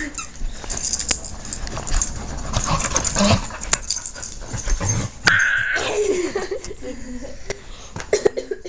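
Black Labrador puppy play-fighting with a person: knocks and scuffles throughout, with dog whimpers and yips and a short high whine about five seconds in.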